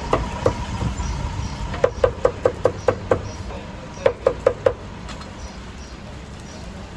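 Knife chopping on a cutting board in quick runs of knocks, about five a second, each with a short wooden ring. The runs come at the start, about two seconds in and about four seconds in, and stop near five seconds in.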